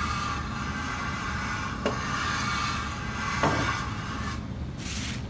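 Aluminum intake manifold flange rubbed back and forth on sandpaper over a cast-iron table saw top, lapping the flange flat. Two short knocks come as it shifts, and the rubbing stops about four seconds in.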